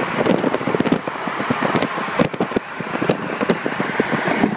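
BMW F80 M3's twin-turbo inline-six running, heard from close behind the car, with heavy wind buffeting and crackling on the phone's microphone.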